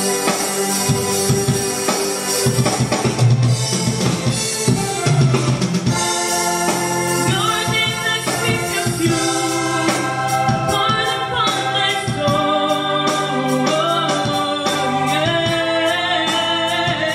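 Music with drums and electronic keyboard. A woman's singing voice comes in about six seconds in and carries a melody to the end.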